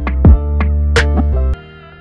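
Electronic background music with a drum-machine beat over sustained bass and synth chords; it cuts off about one and a half seconds in, leaving a fading ring-out.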